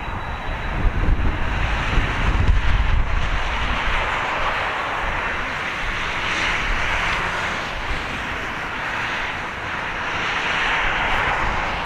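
Boeing 767-300ER's twin jet engines running at taxi power as the airliner turns and lines up on the runway: a steady jet hiss that swells twice. Low wind rumble on the microphone in the first few seconds.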